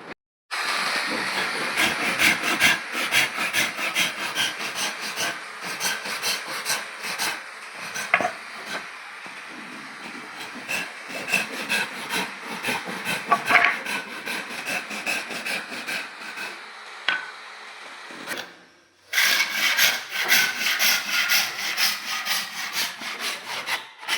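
Hand tool working wood in quick repeated strokes, several a second, as in sawing or rasping. Louder strokes at first, then lighter ones. It breaks off abruptly near the end, then the strokes resume.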